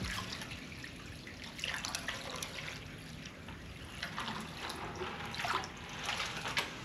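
Water poured from a five-gallon plastic bucket into a stainless steel water-table pan, trickling and splashing with uneven surges.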